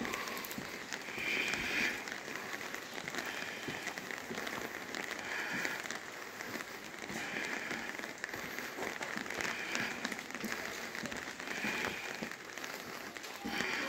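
Light rain pattering steadily, full of fine drop ticks, with a soft swish coming back about every two seconds.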